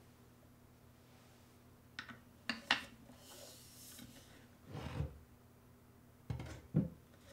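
Clear acrylic insert ring clicking into the opening of an acrylic router-table plate: a few sharp plastic clicks, a brief scraping rub, then two duller knocks as the acrylic plate is handled on the trim router base.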